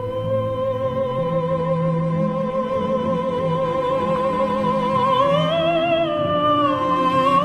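Background music in an operatic style: one long note sung with vibrato over low sustained orchestral accompaniment. The line rises to a higher note about five seconds in, then falls back.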